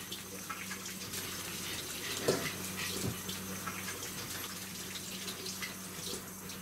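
Small Japanese Chin dog panting, with two short whimpers a little after two seconds in, over a steady low hum.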